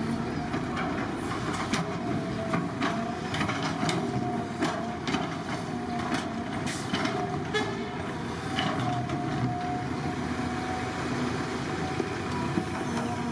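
Heavy construction machinery working, most likely an excavator, with its diesel engine running steadily under many scattered knocks and clanks.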